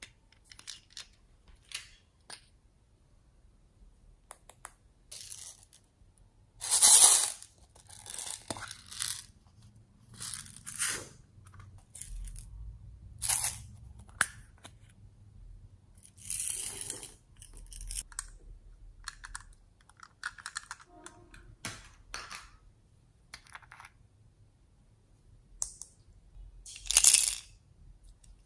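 Small hard plastic toys handled and opened by hand: irregular clicks, taps and short rasping scrapes of plastic, the loudest about seven seconds in.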